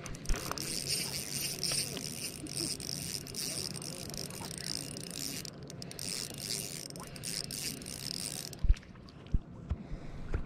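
Spinning reel being cranked to retrieve line, a steady high whir with a brief pause partway through, stopping near the end, followed by a few light knocks.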